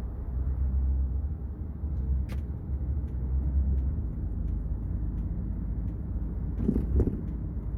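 Road and engine noise inside a Kia K5 sedan's cabin at highway speed: a steady low rumble. A sharp click comes about two seconds in, and a few louder bumps near the end.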